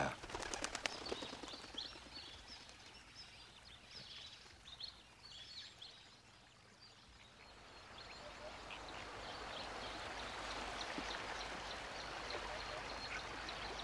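Faint wild ambience: small birds chirping in the first few seconds, then a steady even hiss that swells through the second half.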